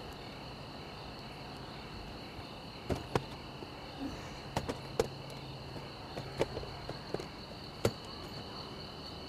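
Crickets chirring steadily at night, with a handful of short knocks and clicks as a suitcase is handled and lifted out of a car's open hatchback.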